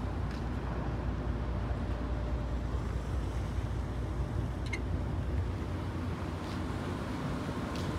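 Steady low rumble of a car ferry under way, with wind blowing across the microphone on its open deck.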